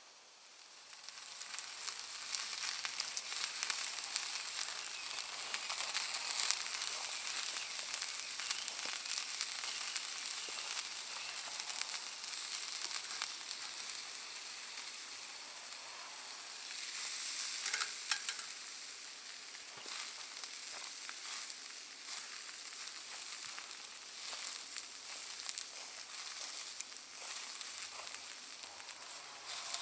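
Sausages sizzling over a wood and charcoal fire: a dense, steady hiss with scattered sharp crackling pops from the burning Iwate cut charcoal. The sizzle swells in about a second in and grows louder for a moment a little past the middle.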